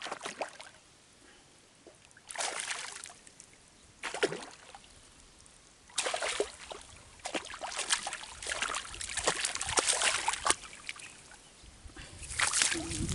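Water splashing and sloshing in irregular bursts: short ones right at the start, near 2.5 s and near 4 s, then a longer run of splashing for about four seconds, and another burst near the end.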